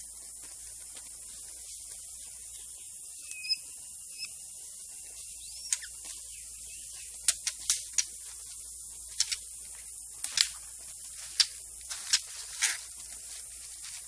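Forest ambience with a steady high-pitched insect hiss. A few short bird whistles and a falling whistled note come about three to six seconds in, then a run of sharp, irregular snaps and clicks from about seven seconds on.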